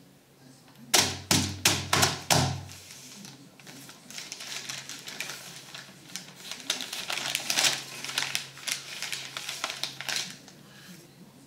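Small hands slapping a newspaper spread on a table, five quick slaps about a second in, followed by newsprint rustling and crinkling for several seconds as the pages are lifted and crumpled.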